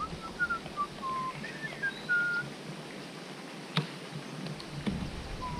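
A run of short, clear whistled notes at changing pitches, then one longer note falling in pitch near the end. A single sharp knock comes a little under four seconds in.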